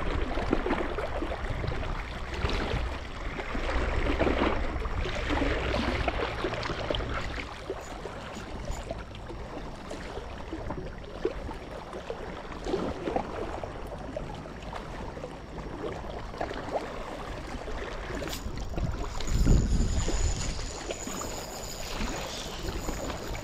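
Water splashing and sloshing in uneven bursts, with a louder low thump about 19 seconds in.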